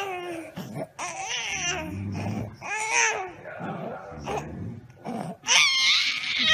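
Infant babbling and squealing in short high-pitched runs, with the loudest squeal near the end.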